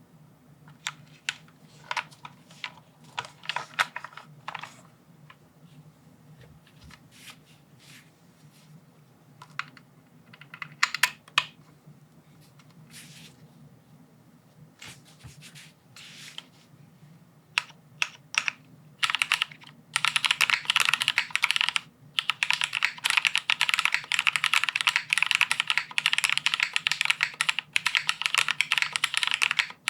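Custom mechanical keyboard, a plateless sandwich-mount Teahouse Cinque with lubed Cherry MX Black linear switches and GMK ABS keycaps, being typed on: scattered single keystrokes and short runs at first, then fast continuous typing from about twenty seconds in.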